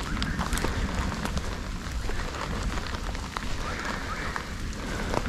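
Steady rain falling, with many small scattered drop ticks over a low rumble.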